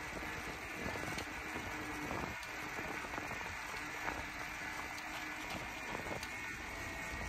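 A noisy bicycle ridden along a rough path: steady tyre noise with constant small rattles and clicks from the bike.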